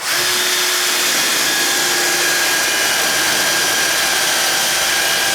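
Dremel rotary tool running at a steady high speed, its stone-grinding bit grinding at the edge of a door strike plate's latch opening; the pitch holds even, with a constant whine.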